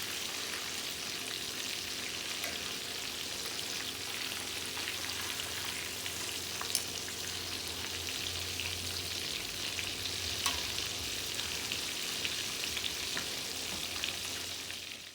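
Cornmeal-coated tomato slices frying in hot oil: a steady sizzle with a few sharp pops. It cuts off abruptly at the end.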